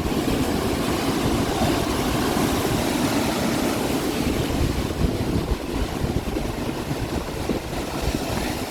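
Strong wind buffeting the microphone in a steady, rough low rumble that starts abruptly, with large waves surging on the lake beneath it.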